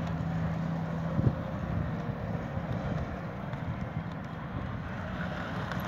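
Small electric motors of a homemade remote-controlled car whirring as it drives and turns on a concrete floor, with wind on the microphone. A steady hum fades about a second in, followed by a single sharp click.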